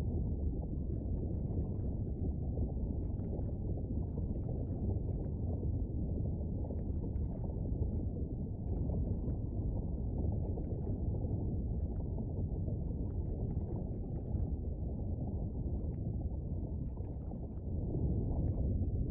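Volcano and lava sound effect: a steady deep rumble with faint scattered crackles and pops, growing a little louder near the end.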